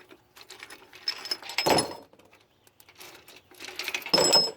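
Metal clinking and scraping as broken gear pieces are handled in a blown GM 10-bolt rear differential, in two bursts: one about a second in and a louder one near the end, the pieces ringing briefly.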